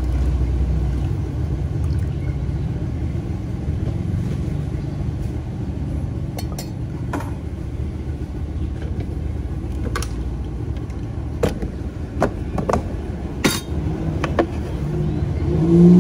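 A steady low background rumble. From about six seconds in there are several short, sharp clinks and knocks of containers being handled on the counter.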